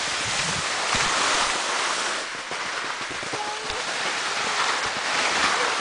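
Skis sliding over snow: a steady scraping hiss that rises and falls a little as the skiers turn.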